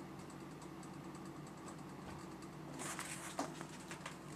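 Faint steady hum with light ticking, then soft rustling and small taps starting about three seconds in: handling noise from the phone being held and worked.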